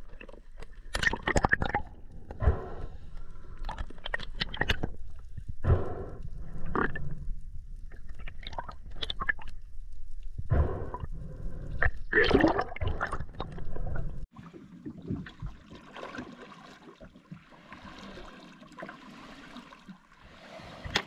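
Underwater gurgling and irregular knocks with a low rumble, as heard through an underwater camera housing; about fourteen seconds in it cuts to a softer, steady wash of water at the surface.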